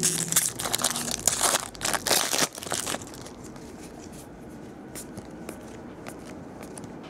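Foil wrapper of a baseball card pack being torn open and crinkled, loud and crackly for about three seconds. After that it goes quieter, with faint clicks of the cards being thumbed through.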